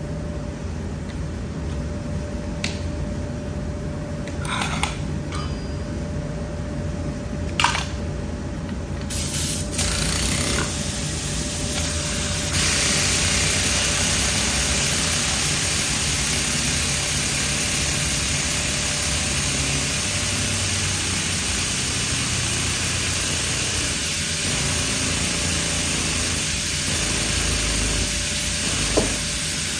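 Steady hissing of compressed air from an air-powered shop tool over a low shop rumble, starting about nine seconds in and getting louder a few seconds later. A few sharp clicks come before it.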